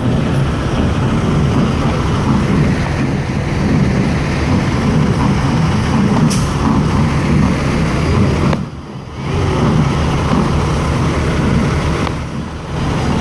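Semi truck's diesel engine running its Jake brake (engine compression brake): a loud, rapid, low rattle that breaks off briefly about two-thirds of the way in and again near the end.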